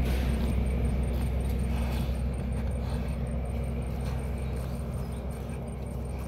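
A motor engine running at a steady pitch with a low hum. It is loud at first and slowly fades.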